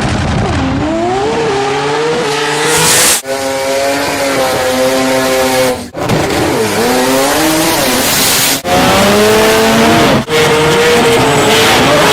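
Car's Wankel rotary engine revving hard, its pitch climbing and falling again and again. It is broken four times by a brief, sudden drop-out.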